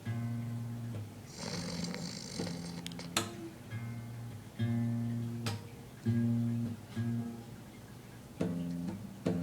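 Guitar playing slow chords, a new chord struck every second and a half or two and each left to ring. There is a short hiss about a second and a half in.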